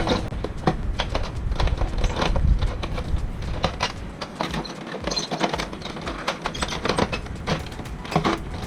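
Irregular clicks, taps and knocks of plastic printer parts being handled and fitted together, as an Epson L360's side cover is put back on.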